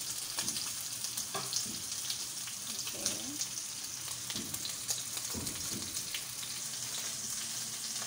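Meat chops frying in hot oil in a frying pan: a steady sizzle with frequent small pops and crackles of spitting fat.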